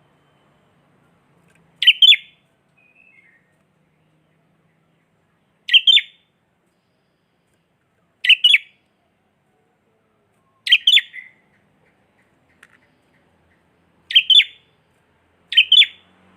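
Sooty-headed bulbul (kutilang) giving prinia-like (prenjak) calls it has learned: six short, loud double-noted calls, spaced one to four seconds apart.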